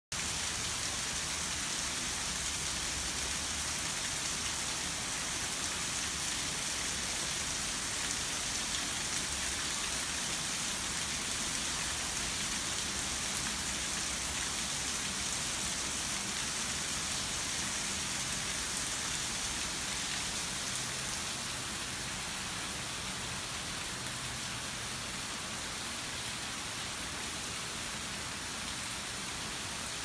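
A small waterfall splashing steadily into a pond, a constant hiss of falling water that gets slightly quieter about two-thirds of the way through.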